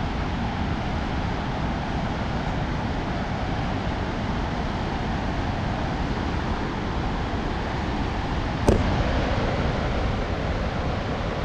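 Steady, deep rush of the Kootenai River pouring over the falls, with one sharp click about three-quarters of the way through.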